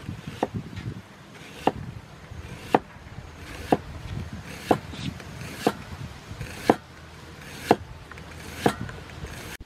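A cleaver slicing through an onion into a thick wooden chopping block, with a sharp knock about once a second as each stroke hits the wood.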